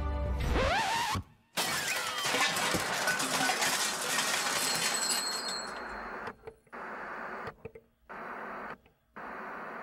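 Sound effects: a quick rising swoop, then a loud shattering crash that fades out over a few seconds, followed by steady TV-static hiss that cuts out briefly three times.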